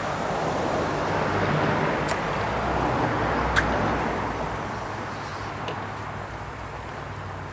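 Road noise of a passing vehicle, a hiss that swells over the first few seconds and fades away after about five, over a steady low hum.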